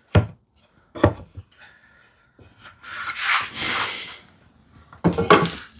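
Wooden rail pieces being handled on the bench: two sharp knocks of wood on wood, then a rasping rub of about two seconds as a piece slides across wood, and a few more light knocks near the end.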